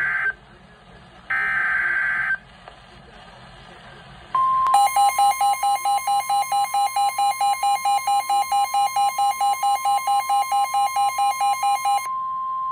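NOAA Weather Radio Emergency Alert System signal: two short buzzy SAME data bursts of the alert header, then the steady 1050 Hz warning alarm tone starting about four seconds in. For most of the tone a second electronic beep pulses over it about four times a second, stopping shortly before the end.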